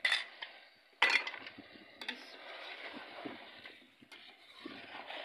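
A spoon scrapes a yogurt-and-spice mix out of a bowl into a metal pot of chicken, then stirs it in, with a few sharp clinks of metal on the bowl and pot about a second apart over the scraping and stirring.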